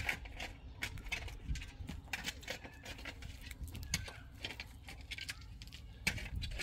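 Soil and small stones scooped and rubbed by hand in a black plastic planting pot: a run of irregular small scrapes, clicks and rustles over a low steady rumble.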